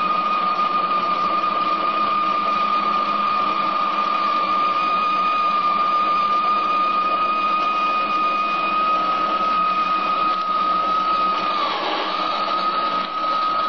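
Paramount BLC-1016 bench metal lathe running a turning pass under power feed on its finest feed rate: a steady high whine from the motor and gear train over even mechanical running noise. Near the end the whine dips in pitch for a moment, then steadies.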